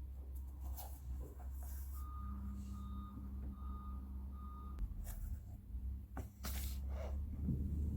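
Four short, evenly spaced electronic beeps from a household appliance, over a steady low hum, with a few clicks and knocks around them.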